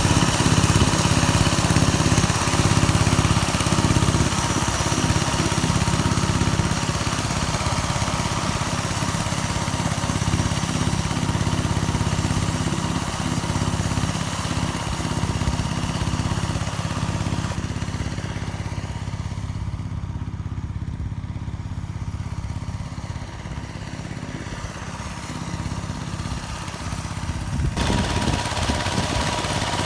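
Engine of a homemade mini tractor converted from a walk-behind tractor, running steadily under load while rotary-tilling soil. It grows quieter and duller past the middle and comes back louder near the end.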